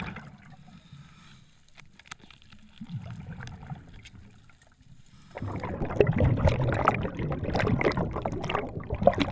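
Underwater sound of a diver's camera: faint clicks and low water movement, then about five seconds in a loud rush of bubbling, churning water as bubbles stream past during the ascent.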